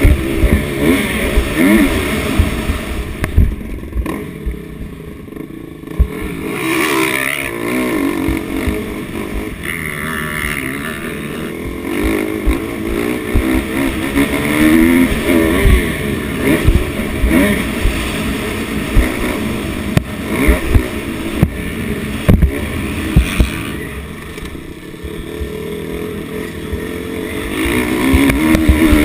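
Motocross dirt bike engine revving up and down through the gears at racing speed, easing off twice, with wind rushing over the camera microphone and sharp knocks scattered through.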